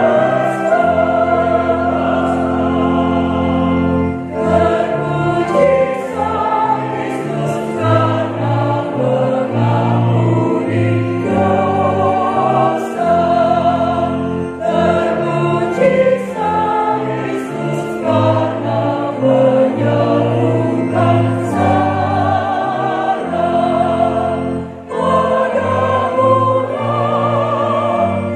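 A church choir singing a hymn in parts, over sustained chords from an electronic keyboard.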